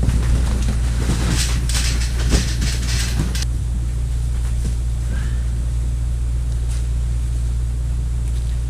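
Irregular clatter and knocks from tools and parts being handled during car repair work, over a steady low hum. The clatter stops abruptly about three and a half seconds in, leaving only the hum.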